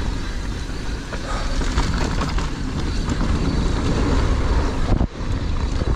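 Gusty wind buffeting the camera microphone over the rumble and rattle of a mountain bike rolling downhill on a dirt trail; the noise dips sharply for a moment about five seconds in.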